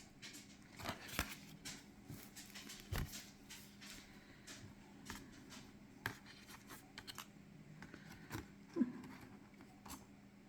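Faint rustling and light taps of tarot cards and packaging being handled, a string of small irregular clicks with a slightly louder tap about three seconds in and another near nine seconds.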